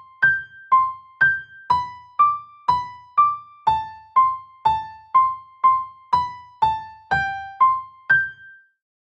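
Synthesized electric-piano ringtone melody made in FL Studio Mobile: single struck notes about two a second, each dying away quickly, with a low thump under each note. The tune stops about eight and a half seconds in.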